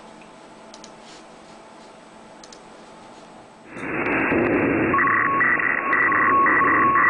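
Faint room tone, then about halfway through a loud hiss of static starts suddenly. A second later two steady high beeping tones begin cutting in and out over the static, as in an electronic outro sound effect.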